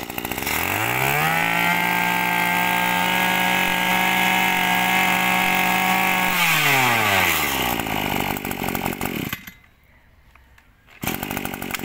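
Small two-stroke engine of a used Japanese brush cutter revved up to high speed, held there for about five seconds, then let back down to idle. It stops about nine seconds in, and engine running resumes about a second and a half later.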